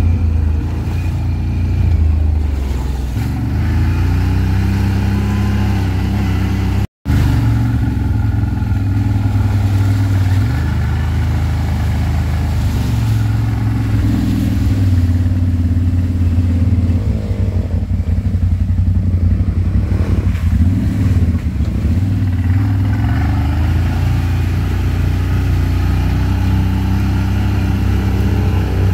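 ATV engine running under way, its pitch rising and falling as the throttle is opened and eased off.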